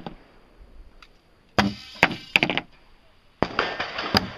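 Thrown knives striking a target: a few sharp clacking impacts in quick succession about a second and a half in, then more strikes and louder noise near the end.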